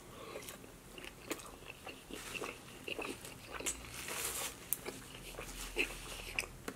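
Mouth-noise eating sounds: a man biting into and chewing a mouthful of food wrapped in a piece of tortilla, close to the microphone, with irregular wet smacks and clicks throughout.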